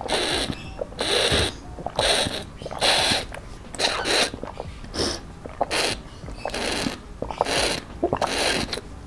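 Drinking through the straw of a plastic drinking bottle: a steady run of sucking pulls and swallows, about one a second, with small wet clicks between them.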